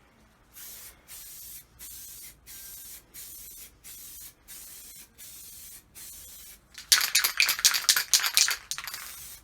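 Aerosol spray paint can hissing in short, regular bursts, about one and a half a second. About seven seconds in comes a louder, crackly rattling stretch lasting about two seconds, before the short bursts return.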